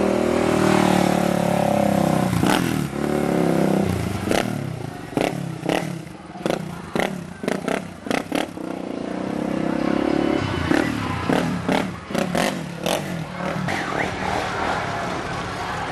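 A motor vehicle engine revving up and down, with runs of sharp, irregular clacks in between.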